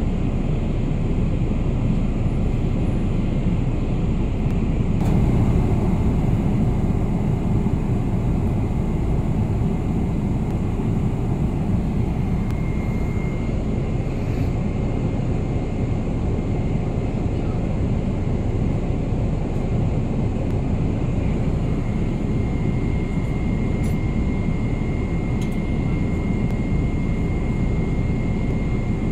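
Steady rushing cabin noise of a Boeing 777-300ER airliner in flight, airflow and engines heard from inside the cabin. A faint steady high tone comes in about halfway through and holds near the end.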